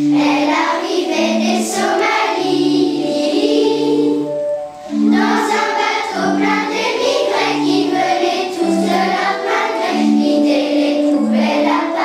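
Children's choir singing together over an accompaniment of held low instrumental notes, with a short breath between phrases about five seconds in.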